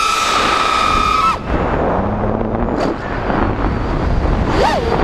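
5-inch FPV quadcopter's brushless motors and propellers whining at a steady high pitch. About a second and a half in, the whine drops out, leaving a rush of wind and prop noise. Near the end the whine comes back, its pitch swooping up and down sharply as the throttle changes.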